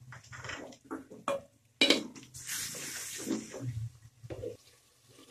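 A wooden spatula stirs and scrapes onions, tomatoes and green chillies frying in oil around an aluminium pot, with a sharp knock against the pot about two seconds in.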